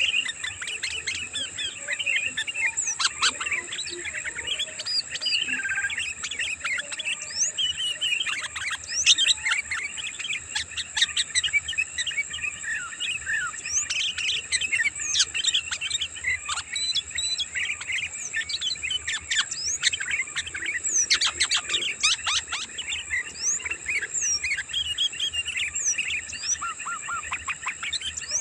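A busy flock of sooty-headed bulbuls (kutilang) chattering: dense, overlapping quick chirps and short whistled notes with no pause, over a steady high whine.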